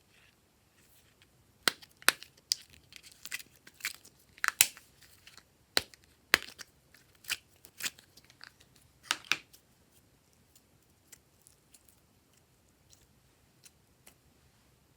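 Glossy slime being squished and stretched by hand, giving a run of sharp clicking pops for several seconds before it falls mostly quiet, with only a few faint ticks.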